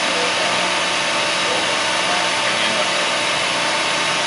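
Steady whirring hiss of a large CNC planer mill running, with a few faint steady hum tones under it.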